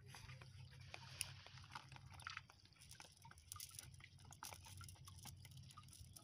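Faint, irregular crackling and rustling of a fishing net being handled and picked through by hand, over a steady low hum.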